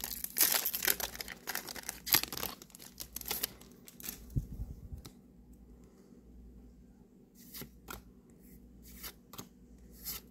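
Foil Yu-Gi-Oh Dimension Force booster pack being torn open and crinkled by hand for the first few seconds, with a soft low thump about four seconds in and a few light clicks near the end.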